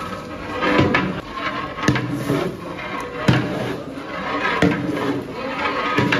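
Long metal ladle stirring meat and thick masala in a large aluminium cooking pot, scraping through the mixture and knocking against the pot about five times, roughly every second and a half.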